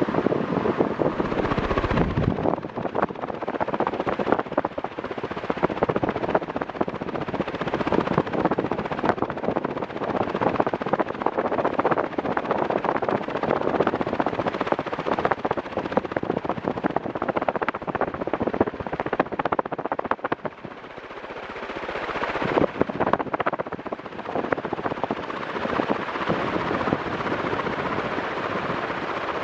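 Panasonic F-560A1 56-inch industrial ceiling fan running, a loud rush of moving air full of rapid rough crackling. About two-thirds of the way through the sound briefly drops, then builds back up.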